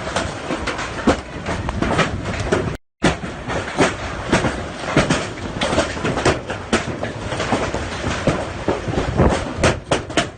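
Hailstones pelting down: a steady rushing noise with many loud, irregular knocks and cracks of stones striking hard surfaces. The sound cuts out completely for a moment about three seconds in, then resumes.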